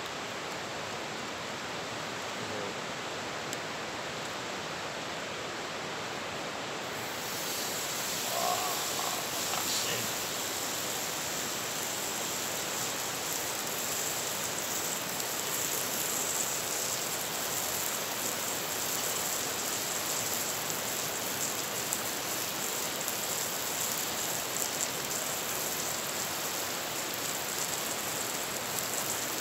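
Steady rush of river rapids; about seven seconds in, a seasoned, oiled sirloin steak starts sizzling in a hot cast-iron skillet over a campfire, a high hiss that carries on under the river.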